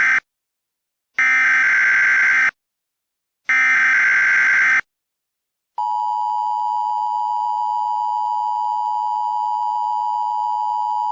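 Emergency Alert System alert: the tail of one SAME header data burst and then two more, each a harsh digital screech about a second and a half long with short silent gaps between. About a second after the last burst, the steady two-tone EAS attention signal begins.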